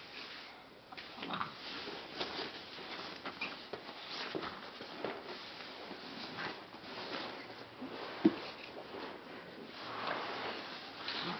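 Scattered soft bumps and rustles of a toddler handling and pushing rubber play balls around a fabric play tent, with one sharp tap about eight seconds in.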